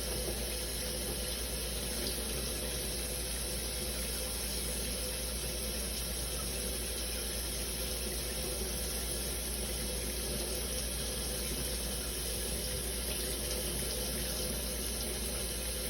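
Shower running steadily, water spraying and splashing.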